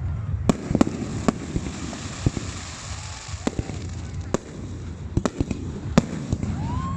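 Fireworks exploding in the sky: a string of sharp bangs and cracks at irregular intervals over a steady low rumble, with a few faint whistles as shells go up.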